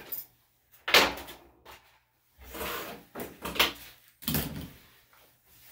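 Handling noises of grooming tools: a sharp knock about a second in, then a few rustling, scraping bursts as the clippers are put down and the scissors picked up.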